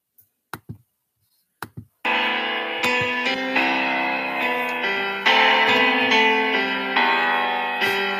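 Instrumental intro of a hip-hop track: a few short clicks, then about two seconds in, keyboard chords start suddenly and play on steadily.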